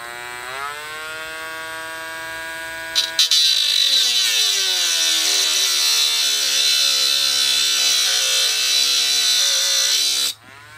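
Dremel rotary tool with a cut-off disc spinning up to a steady whine. About three seconds in, the disc bites into a metal post and a harsh grinding hiss joins as the motor's pitch sags under load. It stops suddenly near the end.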